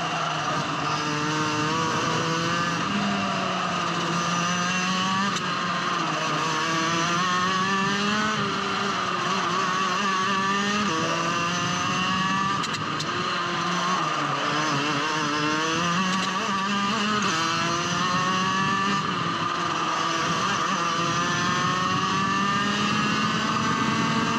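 Rotax Max 125 cc two-stroke kart engine at racing speed. Its pitch climbs steadily, then drops sharply every few seconds, over and over, as the kart accelerates down the straights and lifts for the corners.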